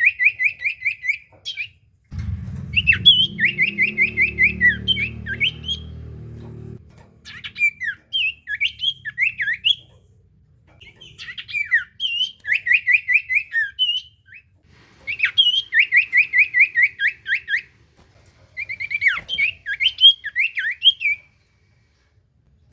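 Common iora (cipoh) singing in loud bouts every few seconds: each bout is a fast run of clear repeated notes mixed with slurred whistles. A low hum sits under the song from about two to seven seconds in.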